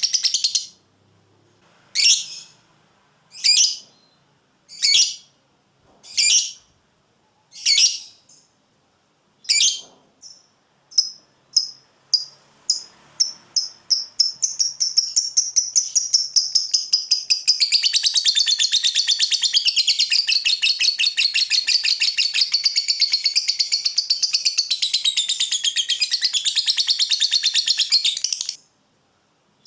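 Lovebird calling: single sharp, high chirps about every second and a half, which quicken around ten seconds in and run together into a long, fast chattering trill, the 'ngekek', lasting about fourteen seconds before it stops abruptly near the end.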